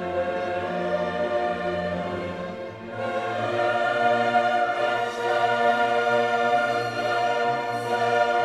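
Background classical music: a choir with orchestra holding sustained chords, swelling louder about three seconds in.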